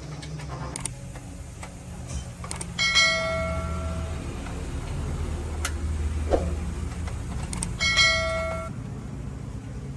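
Two ringing metallic clanks about five seconds apart, each ringing on for about a second, as of a metal tool or engine part struck during truck repair work. Under them runs a steady low hum, with scattered light clicks and taps.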